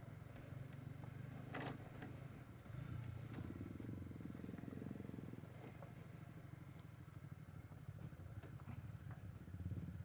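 Honda CBR150R's single-cylinder engine running at low speed on a rough, stony dirt track, growing louder for a couple of seconds a few seconds in. A few sharp knocks and clatter from the bike jolting over the stones, the loudest about a second and a half in.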